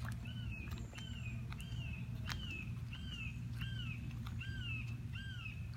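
A bird repeating a short down-slurred call about two and a half times a second, over a steady low rumble.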